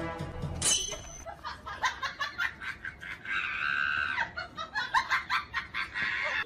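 A person laughing in short bursts, with a drawn-out high-pitched sound a little past three seconds in.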